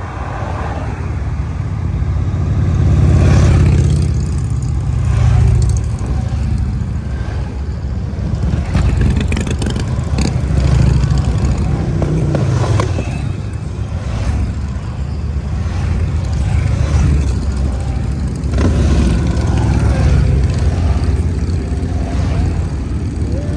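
Engines of a motorcycle motorcade passing one after another, the sound swelling and easing as riders go by.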